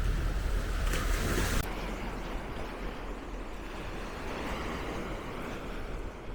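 Small surf washing onto the beach, with wind buffeting the microphone. About a second in there is a short surge of hiss, and soon after the wind rumble drops away, leaving a steadier wash of noise.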